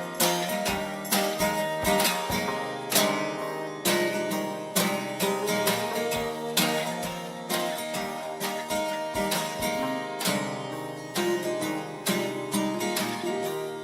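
Acoustic guitar music, strummed in regular strokes, with no singing.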